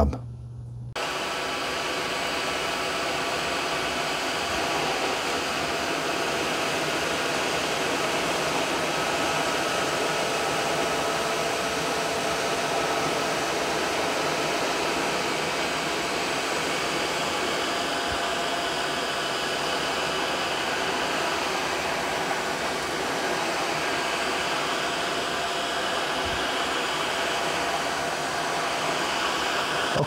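Several Tineco cordless wet/dry floor cleaners running together: the steady whir of their suction motors, starting about a second in, with a few faint steady tones running through it.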